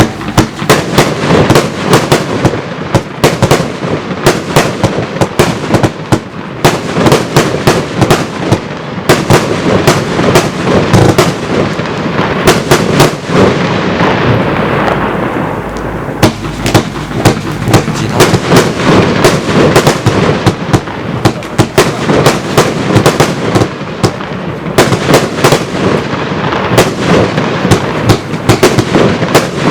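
Zena Color Palm Box, a 75-shot firework cake, firing in rapid succession: a dense, continuous string of launch thumps and bursts, several shots a second.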